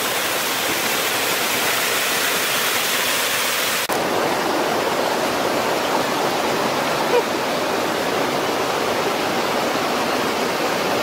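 Water rushing and splashing over rocks in a small waterfall, a steady roar of noise that turns a little duller in the treble about four seconds in.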